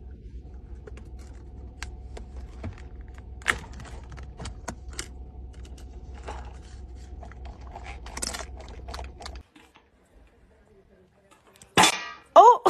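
Low steady hum of a car interior with scattered light clicks and taps as a small dog works at the plastic lid of a large drink cup. After a break near the end, a sharp loud clatter and a short pitched vocal sound.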